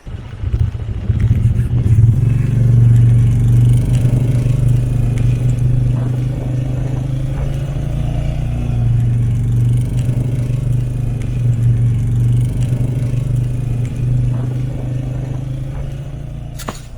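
Vehicle engine running at a steady speed, a low even hum that starts just after the beginning and cuts off near the end.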